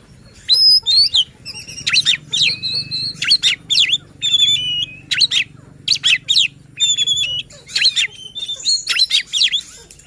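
Oriental magpie-robin (kacer) singing a loud, varied song of rapid whistles, sharp chips and rising and falling notes in short phrases with brief pauses. This is the insistent, fired-up kacer song that bird keepers play to provoke other magpie-robins into singing.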